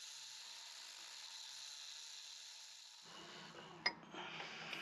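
Faint steady whine of a handheld rotary tool cutting a slot into a seized brake-disc retaining screw. About three seconds in it gives way to metal-on-metal knocks, one sharp tap and a few lighter ones, from a hammer driving a chisel against the screw.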